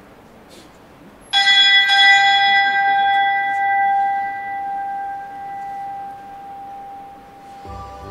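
A bell is struck once a little over a second in and left to ring, its clear tone fading slowly over several seconds. Music begins just before the end.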